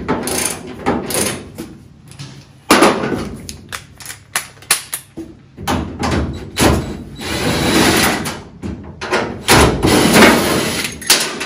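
Metal clicks and clanks as the gear shifter's base bolts are worked loose on the bus's steel floor, first with a ratchet wrench. A little past the middle a cordless drill-driver runs for a second or two, and near the end come clunks as the shifter is pulled up out of the floor.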